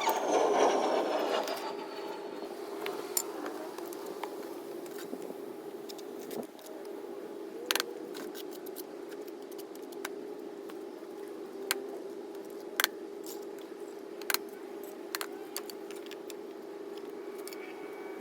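Mason's trowel scraping mortar, then sharp, scattered taps as bricks are knocked into place and levelled, over a steady hum.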